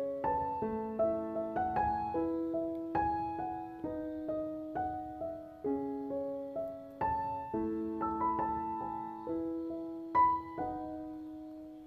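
Background piano music: a slow, gentle melody of single struck notes, each fading away after it is played.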